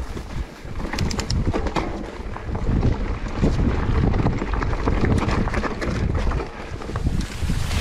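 Mountain bike rolling over a rough dirt and stone trail: tyre noise with frequent rattling knocks from the bike, and wind buffeting the microphone.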